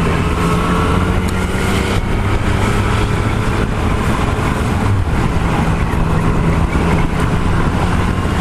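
Yamaha MT-09's inline three-cylinder engine running at a steady, even pitch while the bike cruises along, under a steady rush of wind noise.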